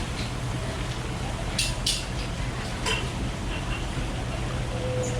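A few sharp clinks of kitchenware, about one and a half, two and three seconds in, over a steady low hum.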